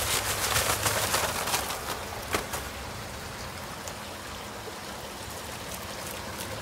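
A mortar hoe scraping and churning wet concrete mix in a plastic tub: a gritty, crackling scrape with many small clicks. It is louder for the first couple of seconds, with one sharper knock, then eases to a softer, steady scraping.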